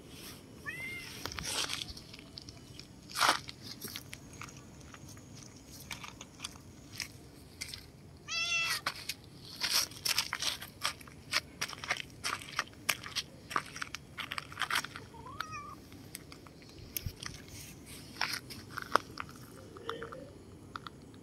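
Domestic cat meowing in short calls, about a second in, a longer one around eight seconds in and a brief one near fifteen seconds, with many sharp crunching clicks in between.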